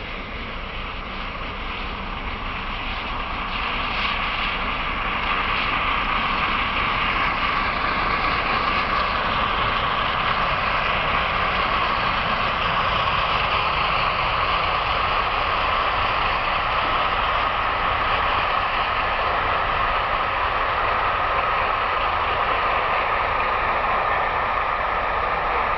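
Peppercorn A1 Pacific steam locomotive and its train passing at speed: a steady rushing rumble with no separate exhaust beats. It grows louder over the first five or six seconds, then holds.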